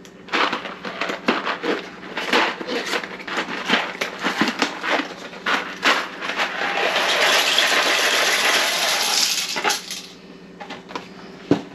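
Dry pasta being poured out of its box into a pot: a run of rattling, clattering pieces, then a steady rushing pour from about six and a half seconds in until about ten seconds, and one sharp click near the end.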